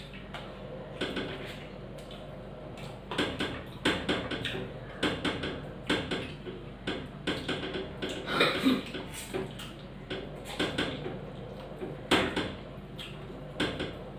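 Close-up eating sounds of people eating dahi pakhal (rice soaked in curd water) by hand: wet chewing and lip-smacking clicks, with fingers squelching through the rice on the plates and light clatter of dishes. The clicks are sparse at first and come thick and irregular from about three seconds in.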